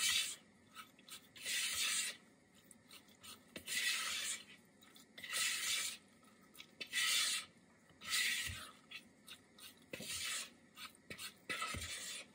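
Spatula scraping and stirring thick cornbread batter (boxed mix, egg and milk) around a plastic mixing bowl, in repeated short scraping strokes about every second and a half.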